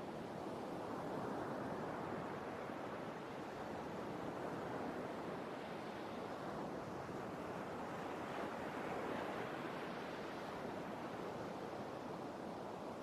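Sea waves washing on the shore, a steady rushing surf that swells and eases gently every few seconds.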